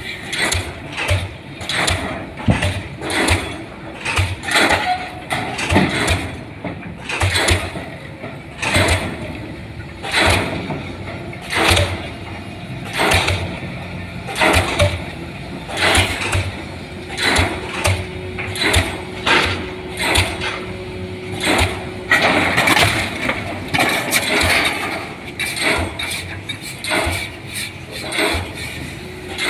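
DD 55 diesel pile hammer driving a concrete pile: sharp, evenly spaced blows about every second and a half, with an engine running underneath.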